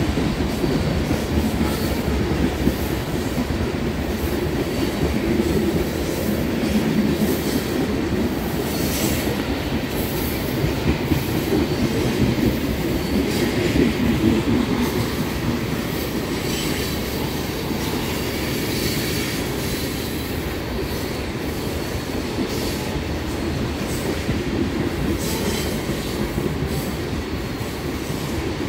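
Freight train rolling past on the mainline: a steady rumble of wheels on rail, with short higher-pitched squeals and clicks from the wheels now and then.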